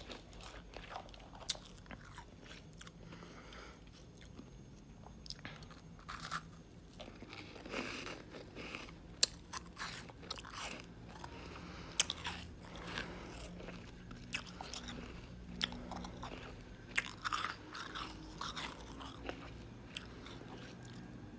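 Crunching and chewing shaved ice made from frozen sparkling water, a mouthful at a time, with irregular sharp crunches.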